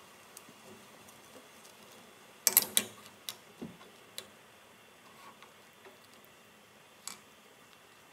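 Wooden skewers of Korean fish cake clacking against each other and the frying pan as they are laid into the broth: a quick cluster of sharp clicks about two and a half seconds in, then a few scattered single ticks.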